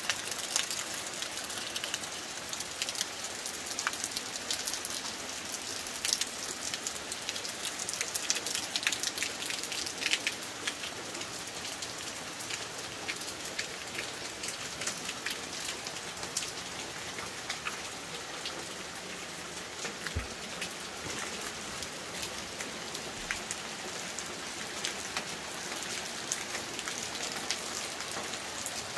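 Steady rain falling, with many sharp drop hits on nearby surfaces that are thickest in the first ten seconds or so, then a more even hiss.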